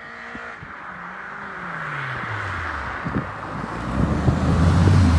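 Clan Crusader race car with a BMW K1200RS inline-four motorcycle engine approaching and getting steadily louder. Its engine note falls over the first few seconds, then runs loud and steady as the car reaches the listener near the end.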